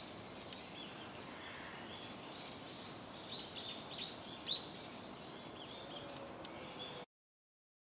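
Small birds chirping: many short, high, falling chirps, busiest about three to five seconds in, over a steady background hiss. The sound cuts off to silence about seven seconds in.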